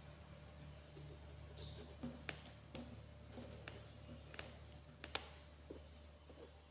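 Faint, scattered clicks and crinkles of paper and tape as fingers press and fold the tail of a paper kite, over a low steady hum.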